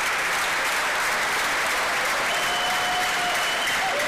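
Large theatre audience applauding: steady, dense clapping.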